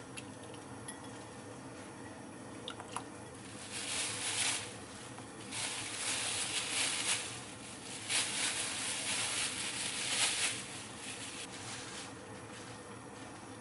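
Frozen dumplings being taken from a plastic bag and dropped into a pot of broth: three bursts of rustling and splashing, with a few light clicks just before.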